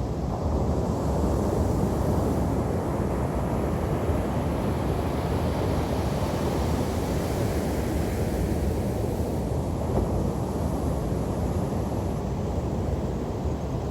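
Ocean waves breaking and washing onto a beach, a steady low rush of surf, with wind rumbling on the microphone.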